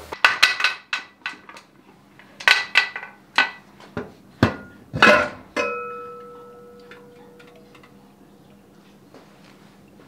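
Sharp metallic clanks and knocks as a metal pressure canner's lid is worked loose and opened. One clank about five and a half seconds in leaves a ringing tone that fades over a couple of seconds.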